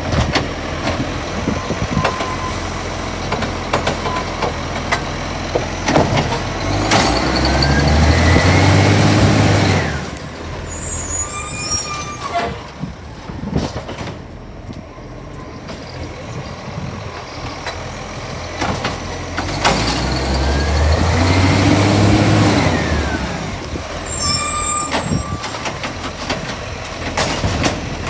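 Side-loader garbage truck at work: the engine revs up twice, a few seconds each time, about seven seconds in and again about twenty seconds in, to drive the hydraulic arm that lifts and empties a bin. Each rev comes with a high whine that rises and then falls. Knocks and clicks come between the revs.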